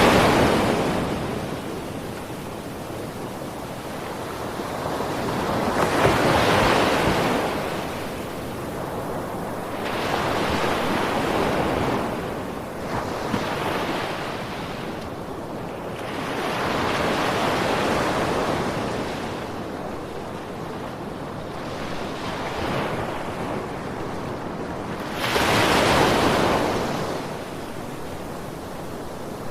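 Ocean waves breaking on a shore, each wave swelling in a surge of surf noise and then fading as it washes back, about every four to six seconds.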